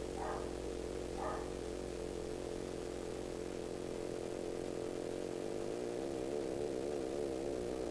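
Arduino Uno running a Mozzi wavepacket-synthesis sketch, playing a buzzy electronic drone with many overtones through a small speaker. Two short higher blips come in the first second and a half, and the drone's pitch starts to waver about four seconds in.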